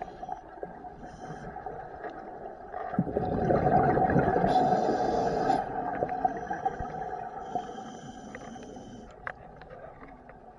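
Scuba diver's regulator underwater: a rush of exhaled bubbles from about three to five and a half seconds in, over a steady underwater hum with a few faint clicks.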